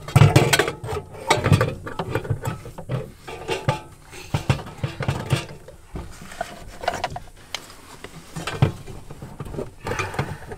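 Irregular clicks, knocks and rattles of hands fitting a Suzuki Samurai's engine computer: the unit pushed up into its place and its two wiring plugs snapped in.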